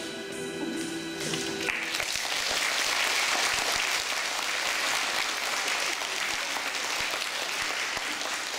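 The last held chord of a women's choir singing over a recorded backing track, cutting off a little under two seconds in, then an audience applauding.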